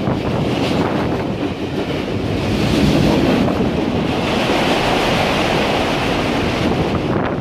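Freight train rolling past at close range, boxcars giving way to autorack cars: a steady rushing rumble of steel wheels on rail that swells about three seconds in.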